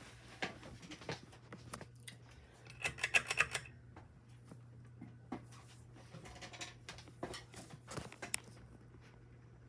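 Scattered clicks and rustling handling noises, with a dense run of rapid clicks about three seconds in, over a faint steady low hum.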